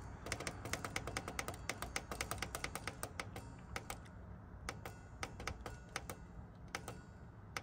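Rapid, repeated clicking of the Chinese diesel heater controller's buttons, stepping the fuel-pump frequency down from 5.5 Hz to the lowest setting, 1.7 Hz. The presses come very fast at first and thin out over the second half, over a low steady hum.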